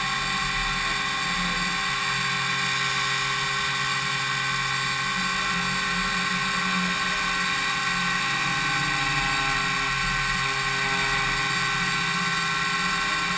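DMU 70V 5-axis milling machine cutting impeller blades: a steady, high machine whine from the spindle and cutter, many even tones over a hiss.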